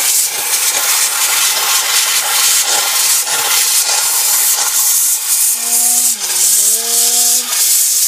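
Handheld steam cleaner blasting a steady, loud hiss of steam into a dishwasher tub, blowing built-up mould and grime out of the sump and filter area. A short wavering hum sounds over it about six seconds in.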